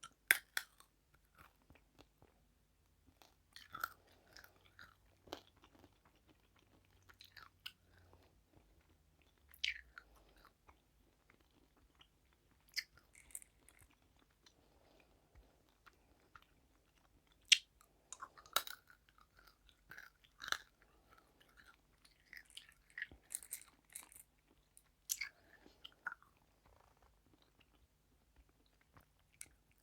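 Close-miked chewing of crunchy food, with sharp crisp crunches at irregular intervals and softer chewing between them.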